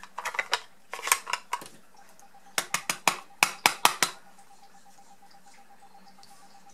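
A run of sharp plastic clicks and taps from handling an ink pad and tapping a rubber stamp on a clear acrylic block onto it to ink it. The last taps come about four seconds in, followed by quiet as the stamp is pressed onto paper.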